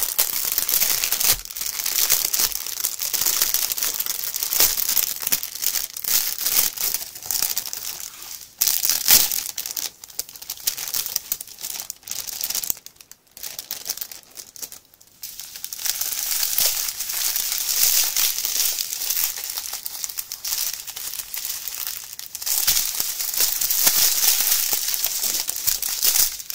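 Clear cellophane wrap crinkling as it is pulled and worked off a plastic tray of diamond painting drill bags, with a couple of short pauses about halfway through.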